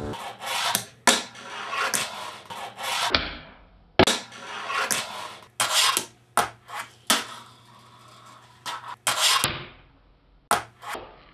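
A fingerboard rolling on a desktop, its wheels making a rolling noise between a string of sharp clacks as the deck pops and lands.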